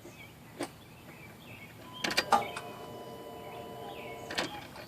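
Ignition key switched on with the engine off: clicks, then the electric fuel pump priming with a steady hum for about two seconds, ending with a click. The pump is pressurising the fuel lines to check the fuel injectors for a leak.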